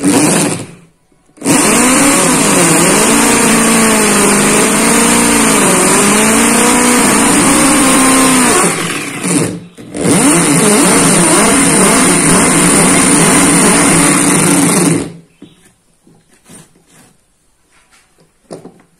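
Corded electric drill with a hole-saw cutter boring a concealed-hinge cup hole into a plywood cabinet door. There is a short burst at the start, then a run of about seven seconds, a brief stop, and about five seconds more. The motor's pitch wavers as the cutter bites and eases off. It stops about three-quarters of the way through, leaving small knocks.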